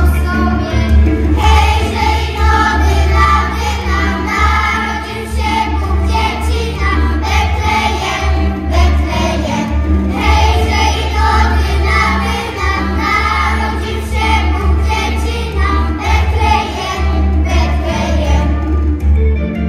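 A young church choir sings a Polish Christmas carol (kolęda) together over a steady low accompaniment. The voices thin out near the end.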